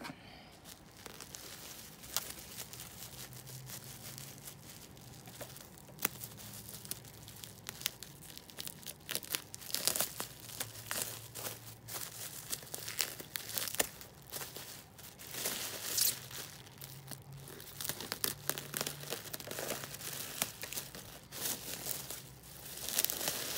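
A taped cardboard box being unpacked by hand: tape tearing and packaging crinkling, with scattered clicks and rustles that grow busier about nine seconds in.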